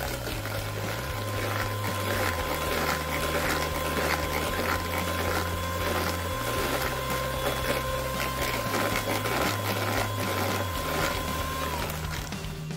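Electric hand mixer running steadily, its twin beaters whirring and rattling in a plastic bowl as they beat a thick butter mixture. The motor's whine drops and cuts off near the end.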